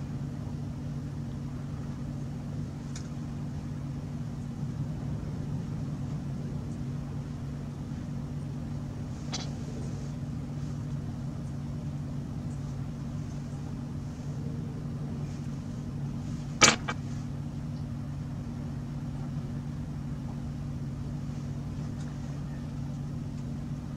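Steady low background hum, with one sharp click about two-thirds of the way through and a couple of fainter ticks earlier.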